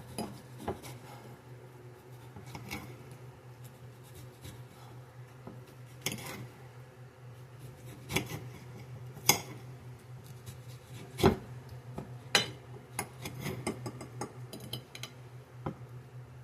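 Kitchen clatter: scattered clinks and knocks of dishes and utensils being handled, a dozen or so separate strikes with a quick run of small ticks near the end, over a steady low hum.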